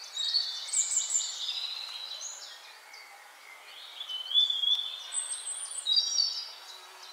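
Birds singing: several overlapping high calls, short chirps mixed with longer whistled notes that slide up and down in pitch.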